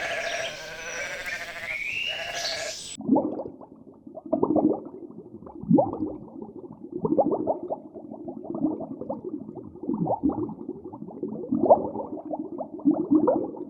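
Sheep bleating. One clear bleat is followed by a cut about three seconds in to a muffled recording of sheep bleating over and over in short calls.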